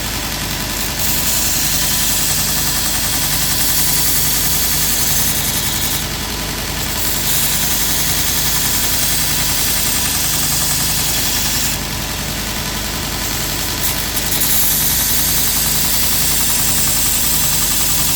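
Grizzly 2x42 belt grinder running with a steady motor hum while a lopper blade is ground on the slack part of the belt: three long passes of loud grinding hiss, each a few seconds long, with short breaks between them where only the motor is heard.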